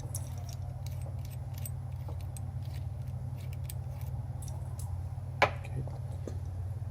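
Small metallic clicks and clinks of a wrench working a threaded hose fitting loose, with one sharper click about five and a half seconds in, over a steady low hum.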